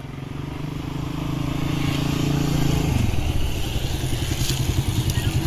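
Suzuki Raider 150 motorcycle engine running, growing louder over the first two seconds; its pitch drops sharply about three seconds in and it carries on at a lower, pulsing note.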